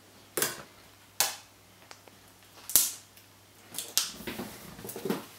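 Handling noise: a handful of sharp clicks and knocks spread across a few seconds, the loudest about halfway through.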